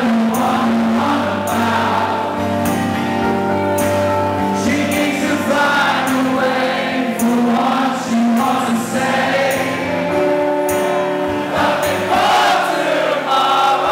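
Live rock band playing a song with singing over the instruments.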